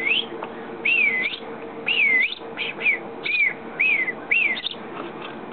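A person whistling a string of short notes, about two a second, each rising then falling in pitch, to coax hand-fed baby sparrows to eat.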